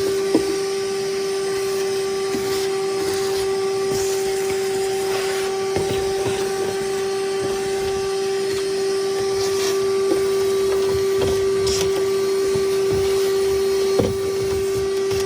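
Vacuum cleaner running at a steady pitch, with scattered short clicks and knocks over it. A weaker upper tone in the motor sound drops away about two thirds of the way in.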